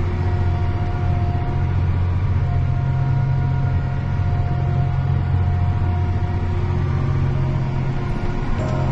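Tractor engine running steadily under load: a constant low drone with steady higher tones above it.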